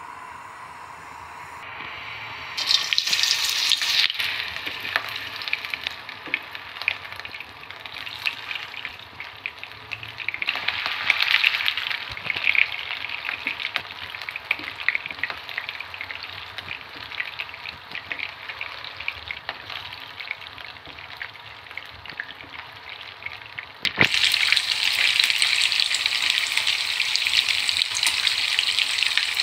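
Pork-and-beef meatballs sizzling and crackling in hot oil in a non-stick frying pan. The sizzle starts about three seconds in and swells again around eleven seconds as more meatballs go in. Near the end a sharp knock of the tongs on the pan is followed by a louder, steady sizzle as the meatballs are turned.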